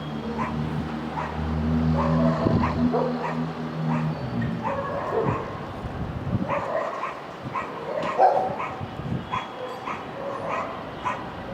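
A pet dog barking and yipping in repeated short calls, over a low steady hum of city noise that fades out about four seconds in.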